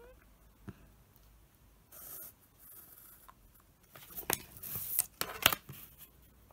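Pencil scratching on paper as lines are drawn along a plastic ruler: a couple of short strokes midway, then a busier run of strokes with a few sharp ticks over the last two seconds.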